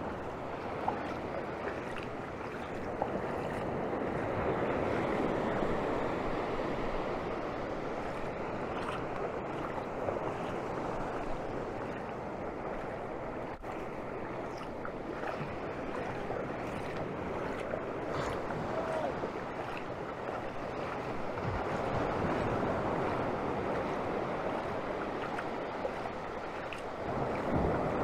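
Ocean surf breaking and washing up the shore: a steady rush of waves that swells louder a few times.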